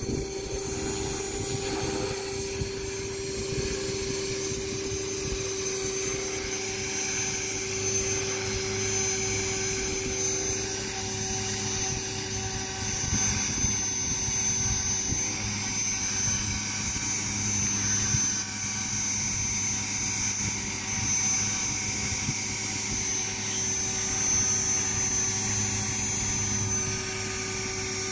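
Radio-controlled model helicopter flying and then hovering low: a steady whine from its motor and rotor.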